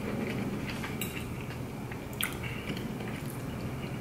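Close-miked chewing of a mouthful of food, with a few light clicks of a metal fork against a ceramic plate and one sharper click a little past halfway. A steady low hum runs underneath.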